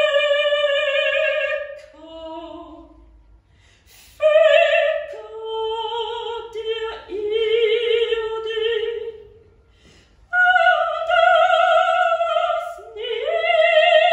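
A solo soprano voice singing unaccompanied in a contemporary art song. She holds long notes with a wide vibrato in separate phrases, with short pauses for breath about three and a half seconds in and again about ten seconds in.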